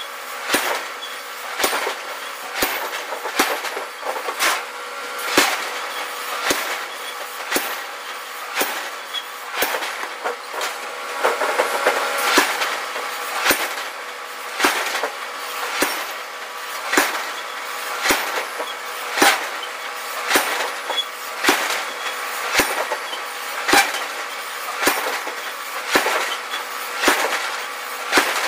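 Power forging hammer striking a red-hot iron cylinder in a steady rhythm, about one blow a second, over a constant machine hum.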